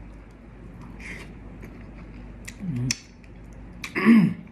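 A person eating with the mouth close to the microphone: scattered wet lip-smack and mouth clicks, and two short hums that fall in pitch, the louder one near the end.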